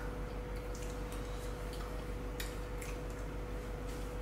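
Faint scattered clicks and light taps of forks on plates and eating over a steady low room hum with a faint held tone.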